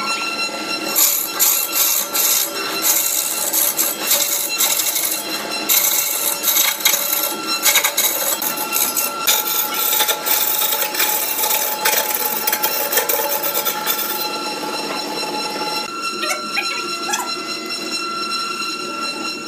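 Wood lathe turning a large log blank, a tool scraping and cutting the spinning wood in rough rasping strokes over a steady machine whine. About fourteen seconds in the rasping thins out and the whine carries on.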